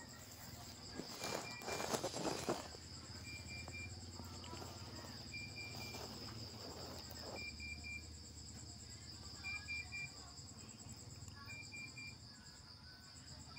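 Insects chirping in a steady high drone, with a short call of three quick pips repeating about every two seconds. About a second in, a brief burst of rough noise is the loudest thing.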